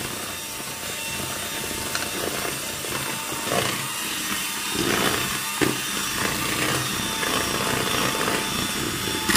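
Electric hand mixer running steadily, its beaters whirring through butter as icing sugar is creamed in for buttercream frosting, with louder scraping through the middle.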